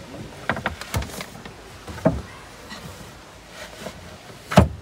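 Plywood lids and panels of a van's storage boxes knocked and clattered as they are handled and set in place: a string of short wooden knocks, the loudest near the end.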